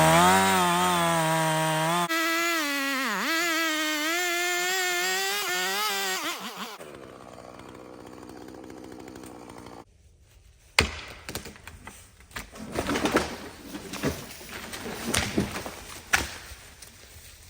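Chainsaw running at full throttle in a cut, its pitch dipping under load about three seconds in, then dropping to a quieter idle and stopping. After it stops, a string of sharp cracks and snaps follows as the cut tree's wood breaks and it starts to fall.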